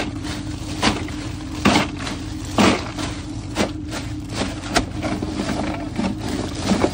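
Plastic bag of crushed ice rustling, with ice crunching and sliding as it is shaken out into a cooler: short sharp strokes roughly once a second. A steady low motor hum runs underneath.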